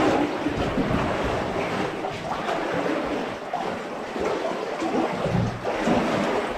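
Water flowing and splashing steadily, a continuous rushing noise that rises and falls unevenly.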